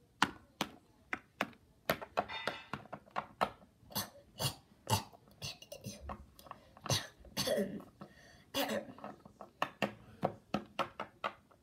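A person coughing over and over, many short coughs in quick succession, some with a voiced, throaty sound, acted as a sick character.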